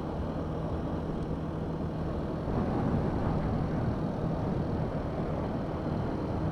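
Benelli BN 125 motorcycle's single-cylinder engine running steadily, getting a little louder about two and a half seconds in.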